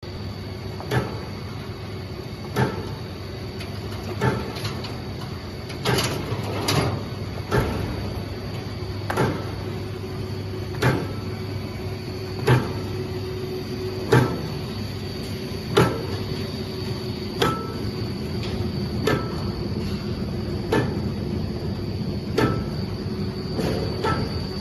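XY-CP-40 CNC paper edge-protector machine running, with a steady hum and a faint high whine. Sharp clunks repeat evenly about every second and a half, the regular working stroke of the machine's cycle.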